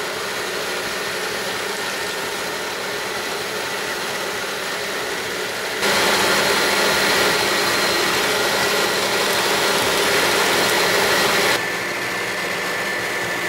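Electric stand mixer running steadily, its twin beaters whisking egg batter for a sponge cake in a plastic bowl. The sound steps up abruptly about six seconds in and drops back just before twelve seconds.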